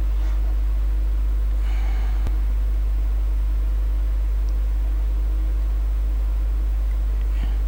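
Steady low electrical hum with faint hiss from the recording microphone, with a single faint click a little over two seconds in.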